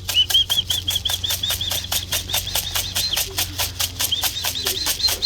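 Rapid, evenly spaced clicking, about six a second, each click with a short high squeak; a keeper's rhythmic calling sound to bring young pigeons down into the loft.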